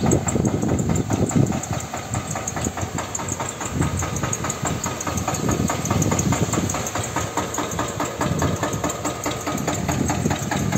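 Tractor engine running steadily while its mounted boom sprayer mists from a row of nozzles, the spray adding a steady hiss.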